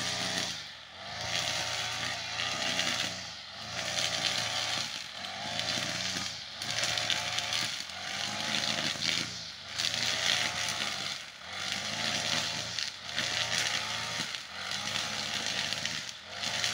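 Two-stroke brush cutter running at cutting speed, its engine rising and falling in pitch and loudness in a steady rhythm about every second and a half as the spinning cutting head is swept through grass and weeds.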